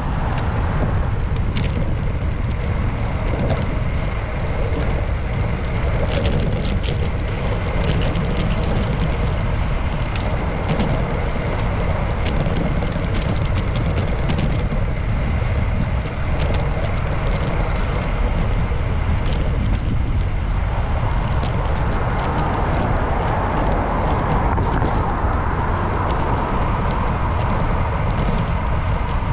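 Steady wind and road rumble picked up by a camera mounted on a bicycle riding along city streets, with motor traffic and a few short clicks and rattles scattered through.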